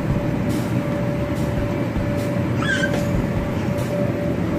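Steady drone of a bounce house's inflation blower, with a constant hum in it. A little over halfway through, a child gives one short high squeal.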